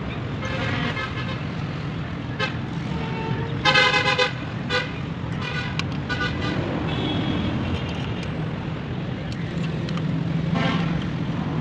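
Road traffic running steadily, with vehicle horns tooting several times, the loudest toot about four seconds in.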